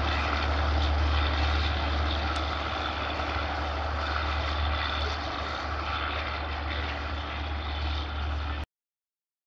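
Passenger train pulling away along the tracks: a steady low rumble with rolling rail noise, slowly fading. The sound cuts off abruptly near the end.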